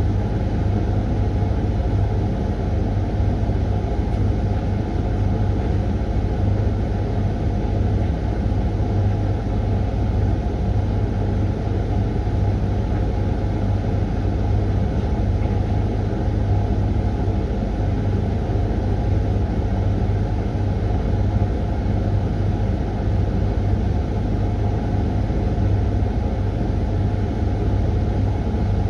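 Hoover washing machine running steadily partway through its Refresh 20-minute programme: a continuous low rumble with a steady hum, unbroken throughout.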